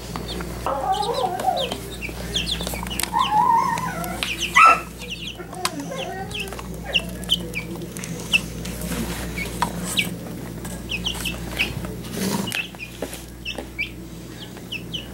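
Several young, half-feathered chicks peeping: many short, high, falling cheeps scattered throughout, over a low steady hum.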